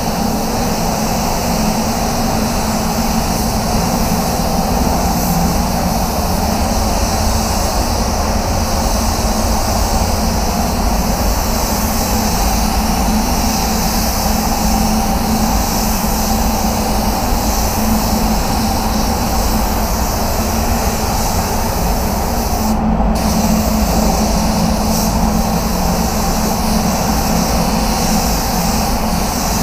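Spray gun hissing steadily over a low machine drone; the hiss breaks off for a moment about 23 seconds in.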